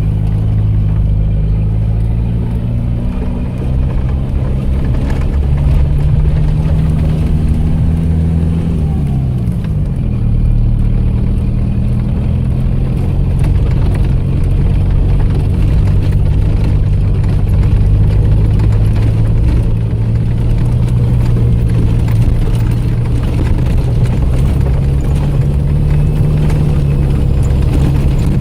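ARO off-road vehicle's engine running steadily as it drives. Its pitch shifts a little about three seconds in and falls away about nine seconds in, then holds steady.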